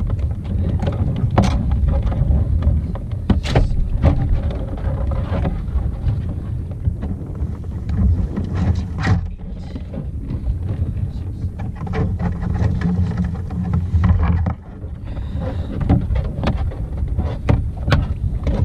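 Wind buffeting the microphone, a heavy uneven rumble, with scattered sharp knocks through it.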